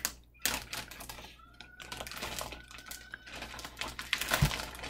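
Clear plastic zip-top bag crinkling and crackling in irregular bursts as a child's hands open and rummage in it, with a dull thump about four seconds in.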